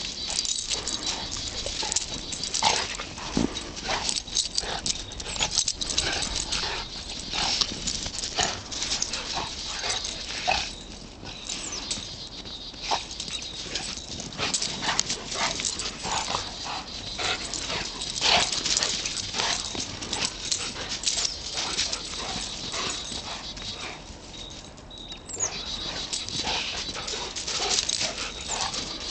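A golden retriever and a St Bernard play-fighting: irregular dog vocal sounds mixed with scuffling as they tussle in snow.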